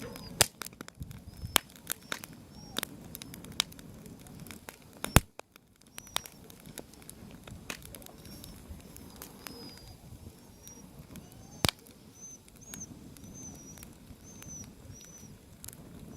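Wood fire crackling, with irregular sharp pops, the loudest about five seconds in, over a low steady rush. Small birds chirp repeatedly in the background.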